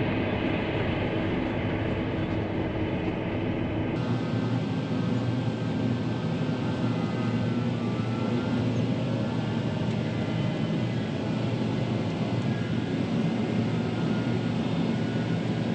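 Heavy farm machinery running steadily: a low engine drone with a thin whine over it, changing slightly about four seconds in.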